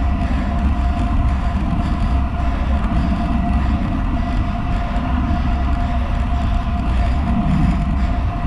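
Road bike on Roval Rapide CLX 50 carbon wheels riding at about 37 km/h: steady wind buffeting on the handlebar-mounted camera's microphone and tyres hissing on wet asphalt. A thin steady whine sits above the rush.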